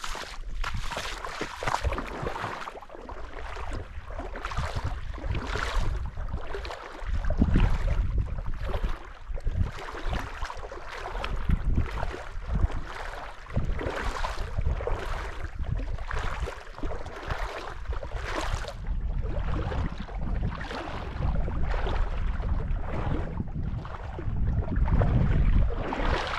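Spring runoff water rushing and splashing, with gusts of wind rumbling on the microphone.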